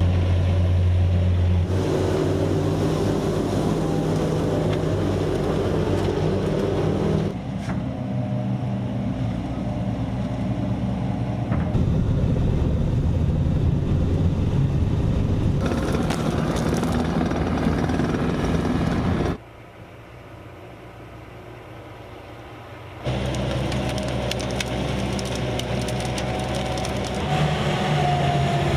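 Vehicle engines running in a series of short clips, the sound changing abruptly every few seconds, with a much quieter stretch about two-thirds of the way through.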